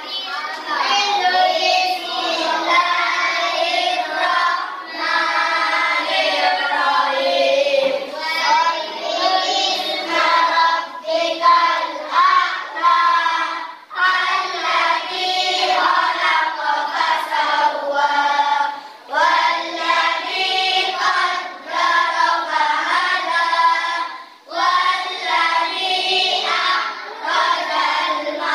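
A group of children singing together, phrase by phrase, with short breaths between lines.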